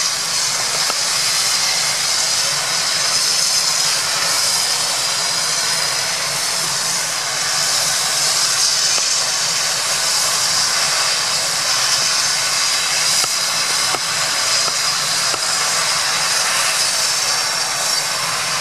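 Medical helicopter's turbine engines running on the ground, a loud, steady whine and rush that holds level throughout.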